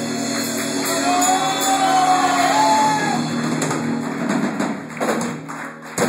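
Live rock band playing: electric guitar, bass and drums, with a long held note that bends in pitch about a second in. The playing thins out and breaks up near the end.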